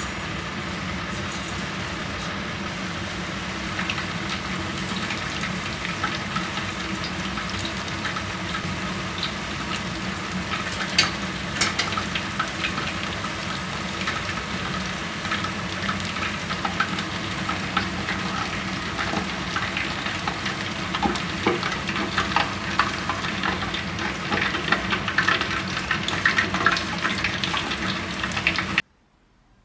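Food frying in hot oil: a steady sizzle full of crackles and small pops, cutting off suddenly near the end.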